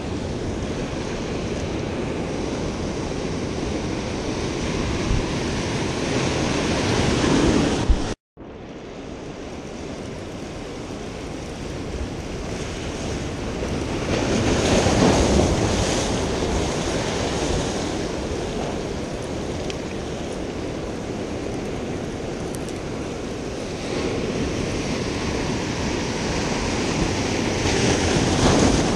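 Ocean surf breaking and washing over the rocks of a jetty, a steady rushing noise with wind buffeting the microphone. The surf swells louder about fifteen seconds in and again near the end, and the sound cuts out completely for a moment about eight seconds in.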